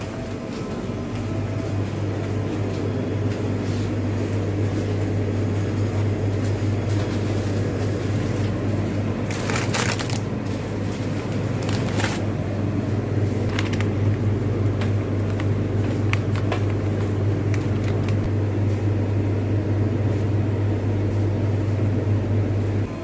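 Steady low hum of convenience-store refrigerated display cases. Around the middle come a few brief crinkles of plastic food packaging being handled.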